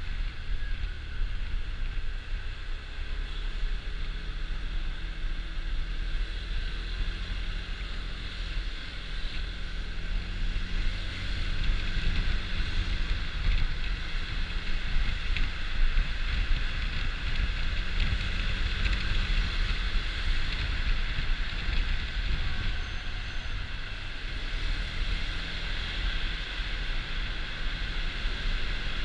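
Honda Dio scooter riding at road speed: wind rushing over the GoPro Hero4's microphone as a steady low rumble, with the scooter's running and road noise underneath.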